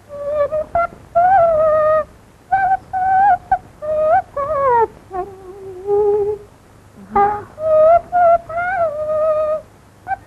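A lone high Cantonese opera melody in short phrases with sliding pitches, one long fall about halfway through, and brief pauses between the phrases.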